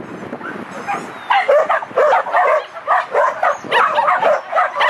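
A dog barking rapidly and excitedly, about three barks a second, starting about a second in.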